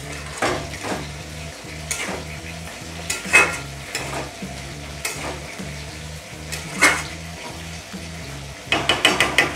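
A metal spatula scraping and knocking against a metal kadai as cauliflower and potatoes are stirred in spiced oil, over a steady sizzle of frying: the spices being fried down (kashano). The strokes come at uneven intervals, with a quick run of scrapes near the end.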